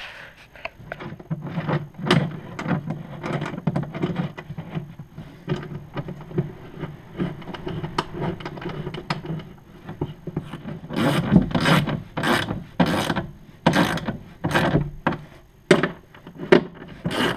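Hand socket ratchet clicking as it is swung back and forth to tighten a mounting bolt of an ATV rear storage box. Short quick strokes at first, then from about two-thirds of the way in, steadier and louder strokes about twice a second.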